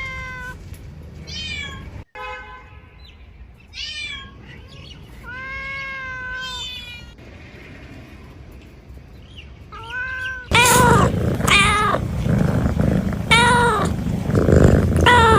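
A cat meowing over and over, calling, with a short meow every second or two. About two-thirds of the way through the meows turn louder and come closer together over a low rumbling noise.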